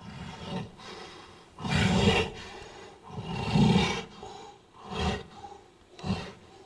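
Gorilla-like creature sound effect: a series of deep roars, the two longest and loudest about two and three and a half seconds in, followed by two short calls near the end.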